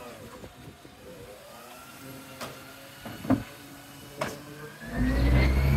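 Side-loader garbage truck's hydraulic arm setting an emptied wheelie bin back down at the kerb, with three sharp clunks. About five seconds in, the truck's diesel engine gets much louder and rises in pitch as the truck pulls away.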